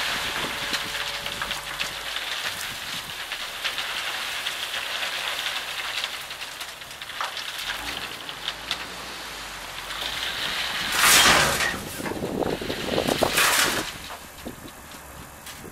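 A load of gravel pouring and sliding out of a raised dump truck bed onto a pile, a steady hissing rush, with two louder, brief surges about 11 and 13 seconds in.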